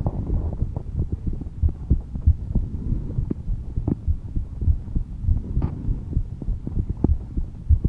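A woman's heartbeat, slow and calm, as a steady run of low thuds. A few faint clicks sound over it.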